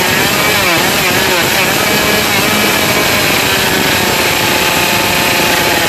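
Small two-stroke brush-cutter engine driving a radio-controlled longtail boat, running loud with a buzzing, chainsaw-like note. Its pitch rises and falls as the throttle is worked in the first second or so, then it holds steadier.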